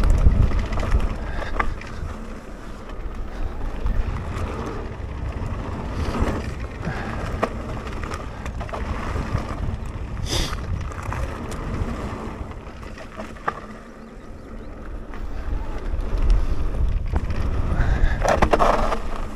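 Mountain bike descending a dirt and gravel trail at speed: tyres rumbling and the bike rattling over the ground, with wind buffeting the microphone. A brief high-pitched sound cuts through about ten seconds in.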